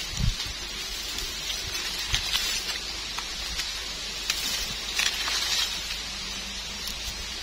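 Crackling and rustling of dry leaf litter with scattered small clicks and scrapes as a knife trims soil off a freshly picked wild mushroom, and a soft low thump just after the start.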